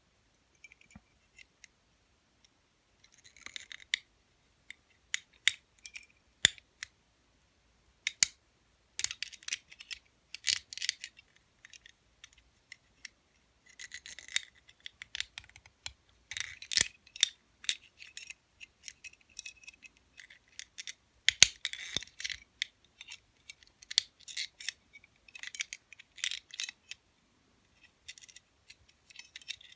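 Lever pick working the levers inside an Eagle double-locking lever padlock: irregular light metallic clicks and short scraping rasps as the pick moves through the lever stack.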